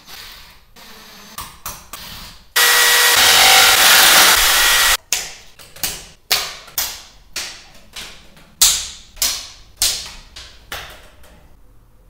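A handheld power drill runs steadily for about two and a half seconds, drilling into the ceiling, then stops abruptly. A series of sharp knocks follows, about one a second, each dying away quickly.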